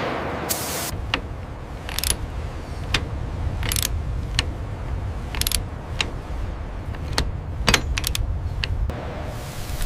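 Mechanical clanking: sharp metal clicks and ratcheting knocks at irregular intervals over a steady low rumble that starts about a second in.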